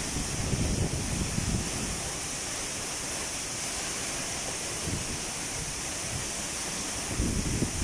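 Tall waterfall falling down a rock face: a steady rushing hiss of water. Low buffeting rumbles on the microphone come through in the first second or so and again near the end.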